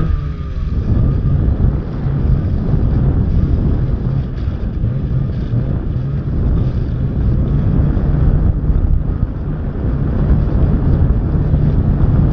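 Snowmobile engine running steadily under way, with heavy wind noise on the microphone. The engine note falls briefly at the very start, then holds.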